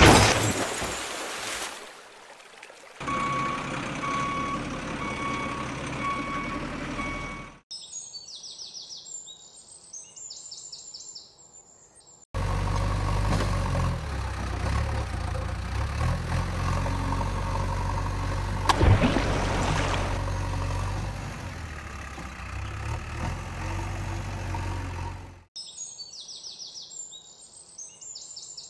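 Birds chirping in short spells, alternating with a long stretch of steady low engine-like rumble and, early on, a run of evenly repeated beeps like a reversing alarm.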